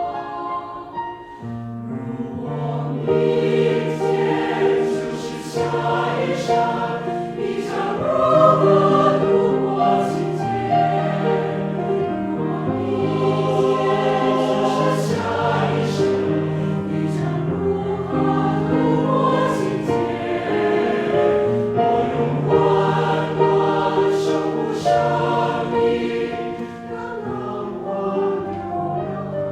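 A choir singing a slow choral song in Chinese with piano accompaniment. Many voices hold sustained chords that swell after a brief dip about a second in and ease off near the end.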